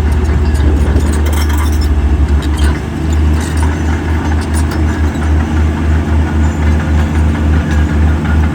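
Heavy diesel engine of construction equipment running, a low rumble that pulses quickly at first and then throbs evenly a few times a second.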